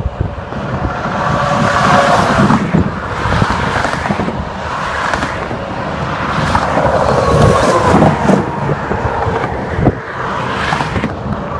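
Freeway traffic, cars and semi trucks driving past with tyre and engine noise swelling and fading as each one goes by.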